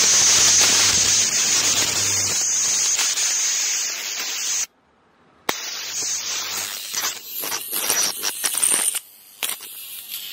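Plasma arc of a homemade 555 flyback-driver plasma speaker, hissing with a steady high whine and a low mains-like hum. About halfway through it cuts out for roughly a second, then comes back as irregular crackling.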